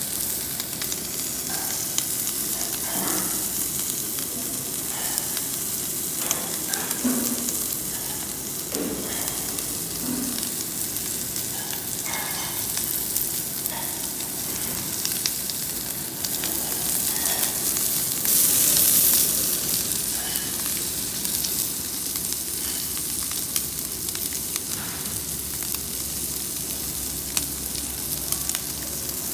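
Pork ribs sizzling on a grill: a steady crackling hiss that swells louder for about a second around two-thirds of the way through.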